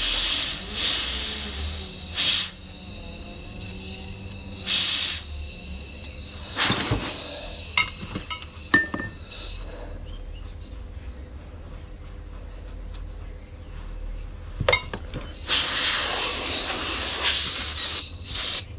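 Compressed-air blow gun hissing in short bursts, then one longer blast of about three seconds near the end, blowing loose moulding sand out of a freshly cut runner in a green sand mould. Faint small clicks and scrapes come between the bursts.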